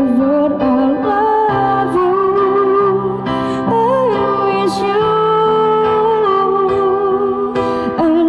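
Singing with instrumental accompaniment: a slow melody with long, wavering held notes over sustained chords.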